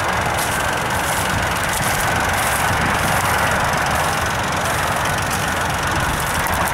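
Ford Explorer's engine running steadily under load while its tires spin in deep mud, churning and throwing it.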